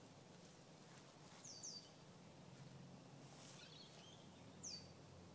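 A bird calling faintly with short, high, falling whistles: two in quick succession about a second and a half in and another near the end. There is a faint low hum underneath and a brief rustle in the middle.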